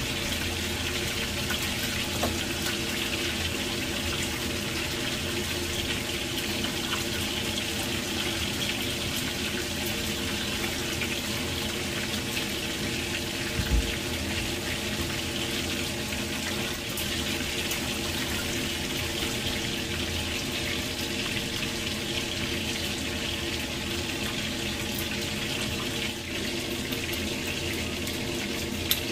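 Kitchen tap running steadily into a basin of water spinach in a stainless steel sink while the leaves are rinsed by hand. A brief knock sounds about halfway through.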